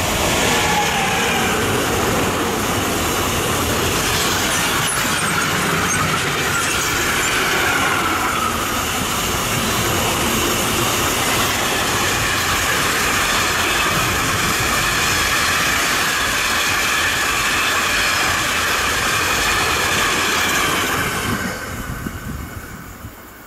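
A freight train of tank wagons hauled by a DB class 185 electric locomotive rolls past close by. The wheels on the rails make a steady rumble and clatter, with high wavering whining tones from the wheels over it. The sound fades away about 21 seconds in as the last wagons pass.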